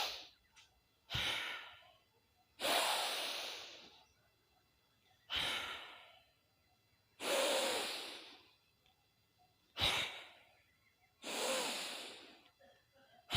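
A man's slow, deep breathing through the nose in bhastrika pranayama, each breath drawn in with effort and let out easily. There are three full rounds, each a short sharp breath followed by a longer one that fades over about a second and a half, repeating about every four seconds.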